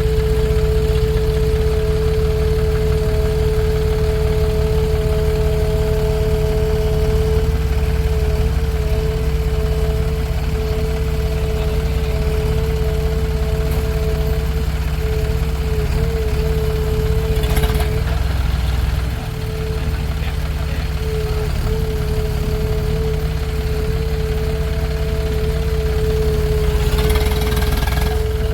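Heavy diesel engine running steadily, a deep rumble with a constant whine over it. Two short, rougher noises break in, about two-thirds of the way through and again near the end.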